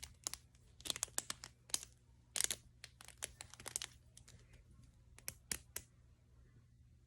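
Small plastic clicks and crackles from a blue and white snake fidget toy being handled. The clicks come irregularly for about six seconds, then die down.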